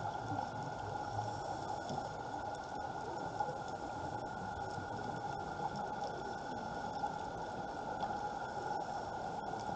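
Underwater ambience picked up by a camera in its housing: a steady, muffled hiss and crackle with a faint steady whine above it.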